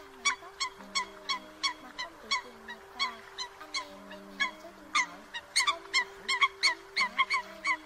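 A flock of Eurasian coots calling: short, sharp call notes, about two to three a second, coming faster and louder in the second half. Held low music notes run underneath. The calls are a lure recording for net-trapping coots.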